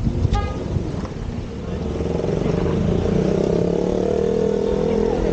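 A motorbike engine running as it rides slowly through street traffic, picking up and getting louder about two seconds in. There is a short high beep near the start.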